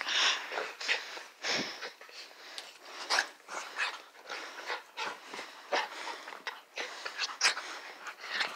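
Puppies snuffling and breathing right at the phone in quick, irregular bursts, with fur brushing against the microphone.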